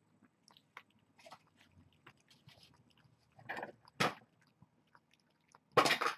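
Cats eating: small wet clicks of chewing and licking, with louder bursts of rustling noise, two about four seconds in and one near the end.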